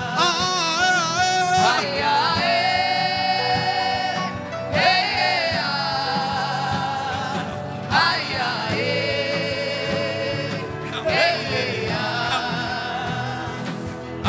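Gospel worship singing: a voice holds long sustained notes with vibrato over steady keyboard-style accompaniment, in about four long phrases, each sliding up into its note after a short break.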